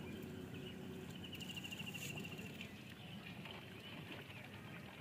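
Faint outdoor ambience with a low steady hum. Over it, a rapid high-pitched animal trill lasts about a second, starting just over a second in, followed by a few faint chirps.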